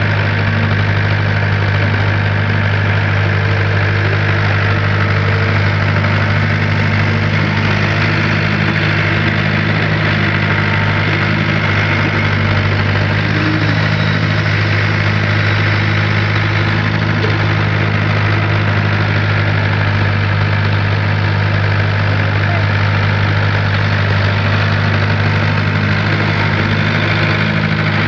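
Excavator's diesel engine running steadily at idle, a constant low hum that does not change in pitch or level.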